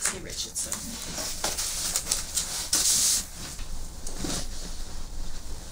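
Rustling and shuffling as a person sits down in a padded office chair, with a short burst of hiss about three seconds in.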